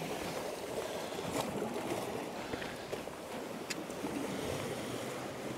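Sea water washing against the rocks, a steady wash, with a couple of faint clicks.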